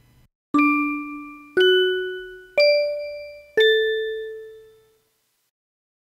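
A four-note chime jingle: four struck bell-like notes about a second apart, rising over the first three and dropping on the fourth, each ringing and fading, the last ringing longest. It marks the end of the video.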